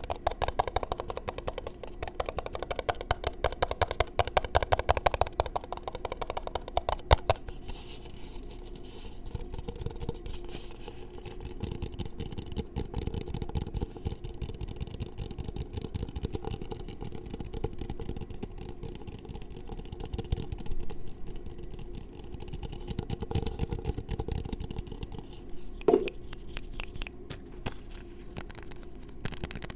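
Fingers tapping fast on and around a small microphone, then, about seven seconds in, switching to a steady scratchy rubbing of hands close to the mic, with a brief flurry of taps again near the end.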